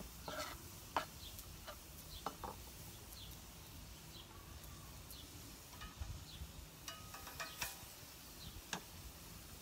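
A few sharp knocks of a chef's knife chopping grilled eggplant into small cubes on a wooden cutting board, bunched in the first two and a half seconds. Small birds chirp faintly throughout.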